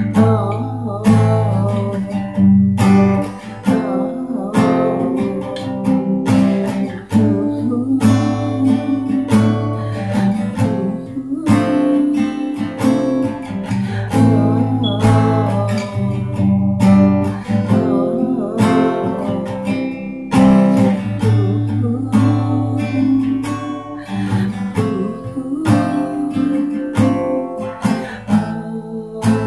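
Acoustic guitar strummed in a steady rhythm, playing an instrumental passage of chords.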